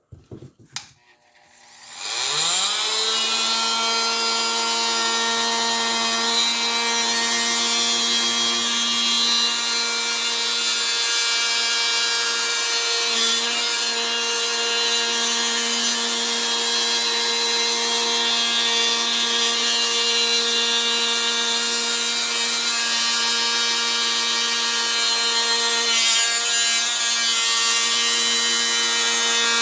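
Kobalt oscillating multi-tool switched on at speed 4, its pitch rising about two seconds in and then holding steady as it cuts into old wood baseboard.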